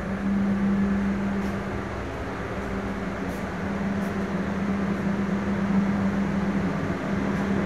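Steady mechanical hum with a constant low tone inside a passenger train's restaurant car, from the carriage's air conditioning and ventilation running.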